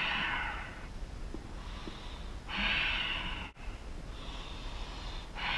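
A man taking slow, deep, audible breaths through a held stretch. Each inhale or exhale is a hissing rush lasting about a second, with short pauses between them.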